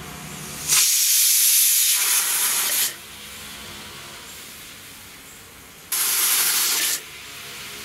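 Aluminium pressure cooker whistling, its weight valve lifting to vent steam in two loud hisses, the first about two seconds long and the second about one second long, with a softer hiss between them. Each whistle marks the cooker at full pressure as the green gram cooks; the cook counts these whistles to time it.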